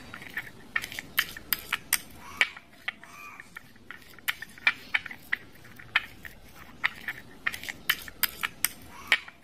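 Metal spoon stirring and scooping thick, freshly finished cornflour-and-toothpaste slime in a glass bowl, with irregular sharp clinks and taps of the spoon against the glass, a few every second.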